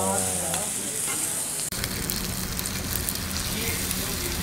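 Fried rice sizzling in a hot round iron pan on a tabletop gas burner while a metal spatula chops and stirs it, clicking and scraping against the pan.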